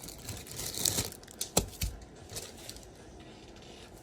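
Handling of small LEGO plastic pieces and their packaging: crinkling rustle for about a second, then a couple of sharp plastic clicks, followed by quieter fiddling.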